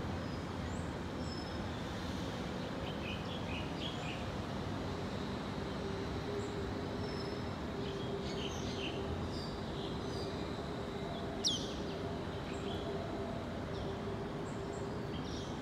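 Steady distant city traffic hum with birds chirping over it. A steady low drone joins from about five seconds in, and one sharp falling bird call about eleven and a half seconds in is the loudest sound.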